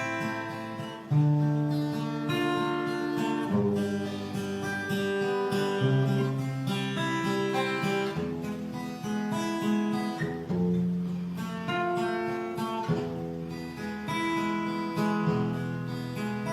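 Instrumental music with strummed acoustic guitar chords over low held notes, the chords changing every second or two.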